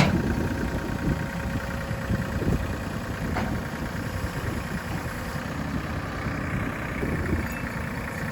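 An engine running steadily at low speed, with a sharp knock right at the start and a faint click about three and a half seconds in.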